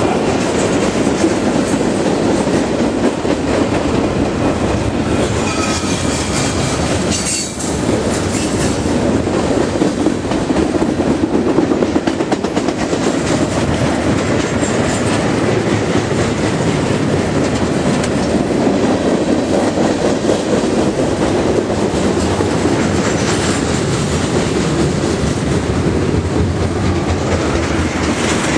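Freight train cars rolling past close by, their steel wheels clattering steadily over the rail joints, with a faint, brief wheel squeal a few seconds in.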